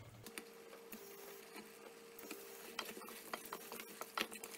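Faint scattered clicks and taps of chopped pumpkin and bottle gourd pieces being dropped into the dal in an aluminium pressure cooker and pushed about by hand, growing busier in the second half, over a faint steady hum.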